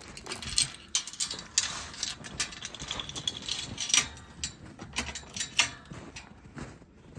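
Irregular crunching and clicking of footsteps walking through snow.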